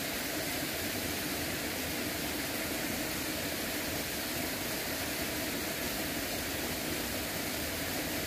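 Steady rushing of a small river flowing at a moderate current.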